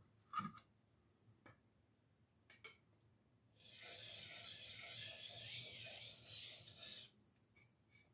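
A handheld sharpening stone scraping along the edge of a steel butcher knife in one continuous stretch of about three and a half seconds, putting a new edge on the blade. A sharp knock comes near the start and a few light clicks follow.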